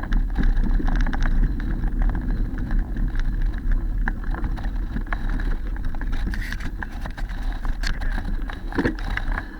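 Mountain bike rolling along a dirt trail: a steady low rumble of wind on the microphone and tyre noise, with many scattered clicks and rattles from the bike.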